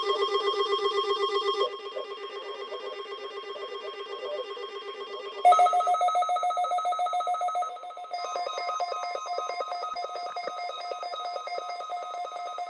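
Electronic alert tones from emergency-alert receiving equipment during a weather-radio weekly test, pulsing rapidly and buzzy like a ringing phone. A lower-pitched tone stops about two seconds in, and a higher-pitched one starts about five and a half seconds in and changes pattern about two and a half seconds later.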